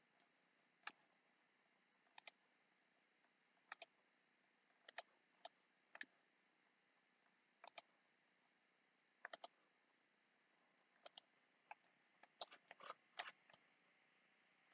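Faint computer mouse clicks, mostly in quick pairs of press and release, coming irregularly about once a second with a busier run near the end.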